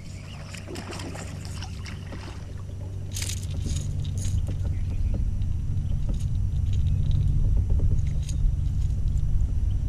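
A small bass being landed into a kayak: clusters of clicks and metallic jangling, strongest about three to four seconds in as the fish is swung aboard shaking on the lure. Under it runs a steady low rumble that grows louder in the second half.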